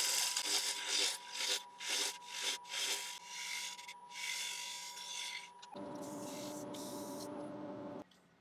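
Wood lathe running with a steady whine while a turning gouge cuts away the tenon on the base of a small ash bowl, in a series of separate cutting strokes. About six seconds in the cutting gives way to a lower, steadier sound, which stops suddenly near the end.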